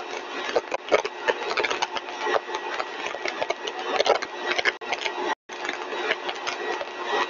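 Single-stage rotor–stator compressor test rig running at full design speed: a steady, noisy mechanical drone with a faint constant tone under dense crackle, cutting out briefly about five seconds in.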